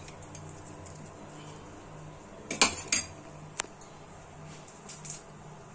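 A few sharp metal clinks of a kitchen utensil against an aluminium pressure cooker: two close together about two and a half seconds in, another a moment later, and lighter taps near the end, over a faint low steady hum.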